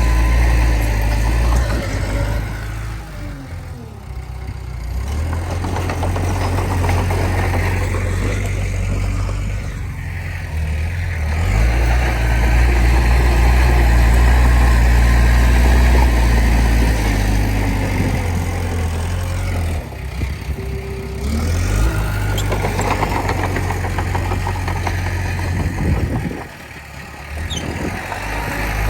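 Komatsu D20P bulldozer's diesel engine working, its pitch and loudness rising and falling repeatedly, with a few brief drops in level.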